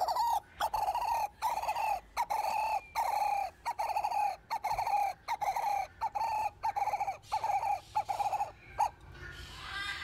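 Ross's turaco giving a loud series of short repeated calls, about two to three a second, which quicken slightly toward the end and stop about nine seconds in. It is a courtship vocalization directed at people.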